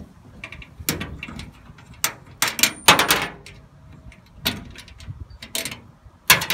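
Irregular sharp clinks and knocks of thumb screws being unscrewed and a mount being lifted off the aluminium gunwale of a canoe, metal on metal; the loudest knocks come about three seconds in.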